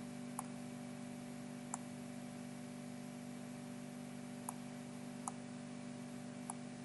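Five faint computer mouse clicks, irregularly spaced, over a steady low electrical hum.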